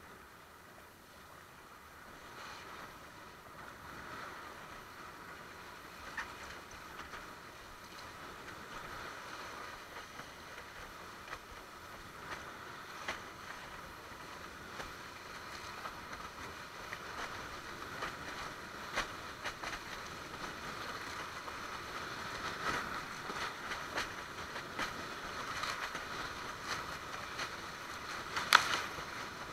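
Water rushing and splashing along a sailing windsurf board, growing steadily louder, with scattered sharp slaps of chop against the board and one loud slap near the end.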